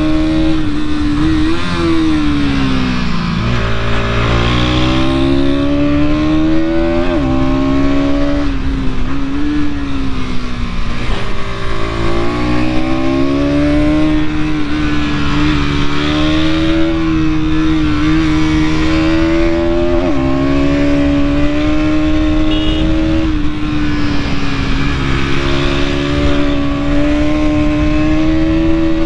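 Bajaj Pulsar NS200's single-cylinder engine pulling the bike along, its note rising and falling over and over as the throttle is opened and closed.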